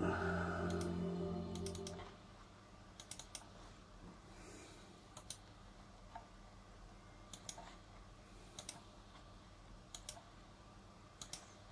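Computer mouse buttons clicking, mostly in quick double-click pairs every second or two. In the first two seconds a sustained chord of steady musical tones from the computer, the tail of the AmigaOS startup sound, fades out.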